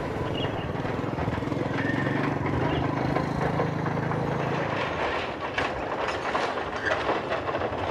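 A motor vehicle engine running steadily, dying away about five seconds in, followed by a few light knocks.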